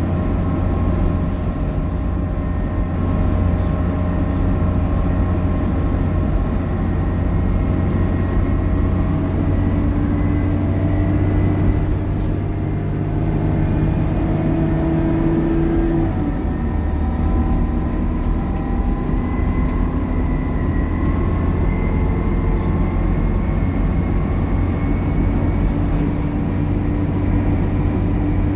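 Dennis Trident double-decker bus running under load: a low engine drone (the 'thrash') with a higher whining 'hoovering' tone over it. The pitch climbs slowly, drops sharply a little past halfway, then climbs again.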